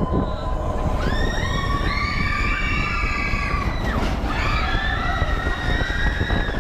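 Roller coaster train rumbling along its track, heard from aboard, with several riders screaming in long, high, overlapping cries from about a second in.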